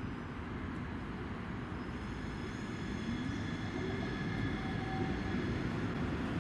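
Siemens Avenio electric tram approaching slowly on street track, its running rumble mixed with steady city traffic noise and a faint electric whine that rises in pitch about midway.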